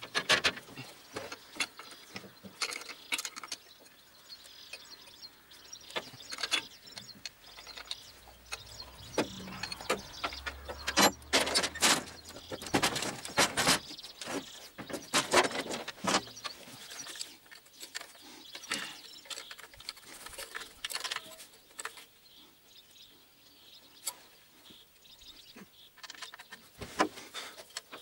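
Irregular metallic clicks, clinks and clanks of hand tools on a tractor's V8 diesel engine as the intake air manifold is unbolted, busiest in the middle stretch. A brief low rumble sounds about ten seconds in.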